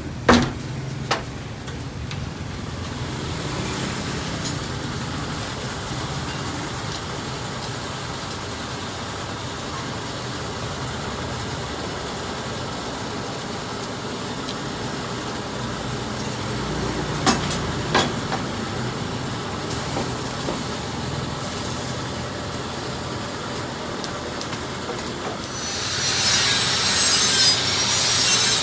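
Steady abrasive rasping of a tool working metal, with a few sharp knocks; it turns louder and harsher near the end.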